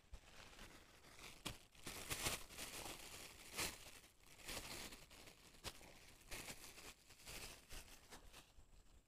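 Clear plastic bag crinkling as it is handled close to the microphone, in irregular bursts.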